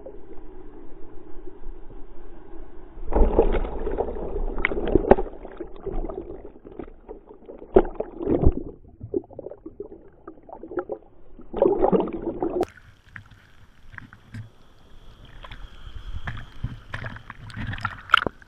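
Turbulent whitewater of a breaking wave churning around an action camera held underwater: muffled rushing and bubbling in irregular surges, with scattered knocks. The surges are loudest about three, eight and twelve seconds in.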